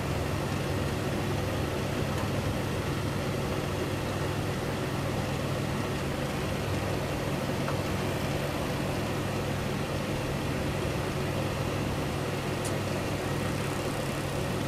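A steady, low mechanical hum that holds the same pitch and level throughout.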